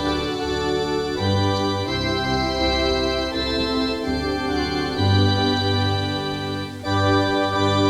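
Organ music: slow, sustained chords held for about a second each before moving to the next.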